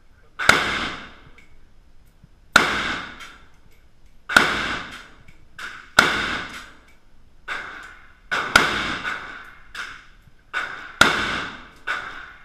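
Gunshots from a shoulder-fired long gun: six loud shots about every two seconds, each followed by a ringing echo off the walls of an indoor range. Fainter bangs fall in between them.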